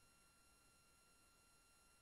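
Near silence: faint steady electronic whine of several high pitched tones over hiss, from the recording itself. No sound from the badger.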